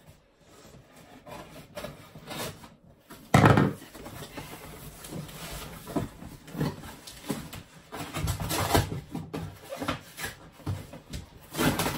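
A large cardboard box being cut open down its side by hand: irregular scraping and rubbing of cardboard, with a sharp loud knock about three and a half seconds in.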